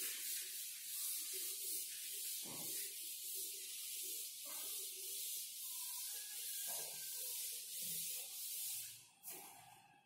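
Chalkboard duster rubbing across a chalkboard, erasing chalk writing: a dry, scratchy hiss in repeated back-and-forth strokes that stops near the end.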